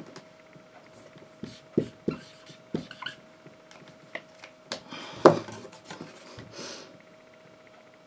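Scattered light knocks and soft rustling in a small room, the strongest knock about five seconds in, over a faint steady hum.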